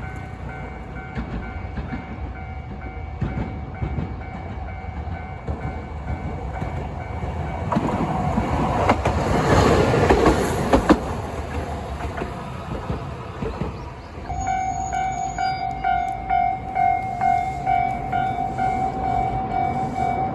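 Japanese level-crossing warning bell ringing in a steady 'kan-kan' rhythm while a train passes, the train's rumble loudest about eight to eleven seconds in. From about fourteen seconds the bell rings louder and clearer, about one and a half strikes a second.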